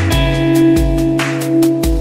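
Background music with a steady beat, held notes and a bass line.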